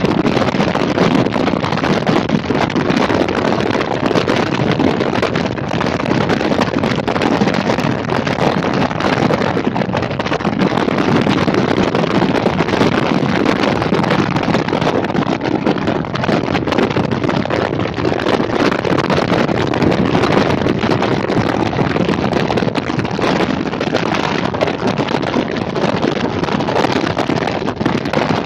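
Motorcycle riding at speed: steady wind rush buffeting the bike-mounted camera's microphone, over engine and road noise.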